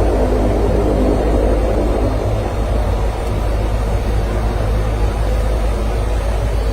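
Dash 8 twin turboprop engines and propellers running, a loud, steady, deep drone heard from the cockpit.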